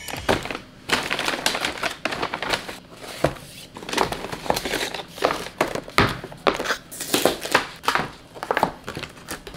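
Rustling and crinkling of a takeout bag and cardboard food boxes being unpacked, with irregular taps and knocks as boxes and cups are set down on a table.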